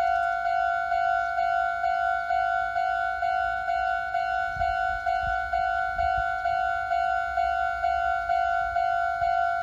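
Japanese railway level-crossing alarm: an electronic warning bell repeating the same ding evenly, about two to three times a second, the signal that a train is approaching and the crossing is closed. A few faint low thumps come about halfway through.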